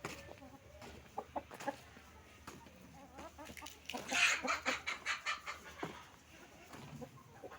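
Chickens clucking, with a louder, busier flurry of short sounds about four seconds in.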